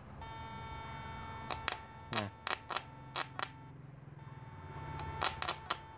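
20SD electrofishing machine's output sparking in a spark test at power level 1: about a dozen sharp snapping cracks in two irregular clusters, over a steady whine from the unit that cuts out briefly in the middle. The spark only snaps sporadically instead of arcing continuously, which the builder puts down to the fish-attracting circuit fitted into the machine.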